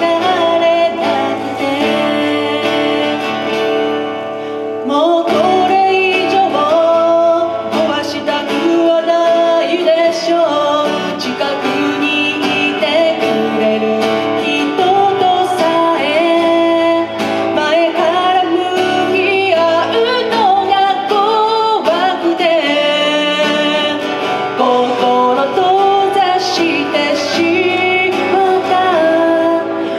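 A woman singing a slow song while accompanying herself on an acoustic guitar, a live solo performance through a microphone.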